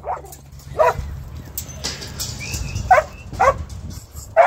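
A working kelpie barking at sheep to move them: about five short, sharp barks, two early on and three close together in the second half.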